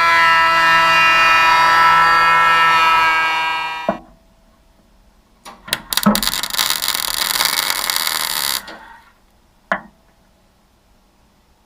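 MIG welder plug-welding holes in steel body panel, in two bursts. The first is a steady buzz for about four seconds that cuts off sharply; the second, about two seconds later, is a crackling sizzle lasting under three seconds. A few clicks fall between and after the bursts.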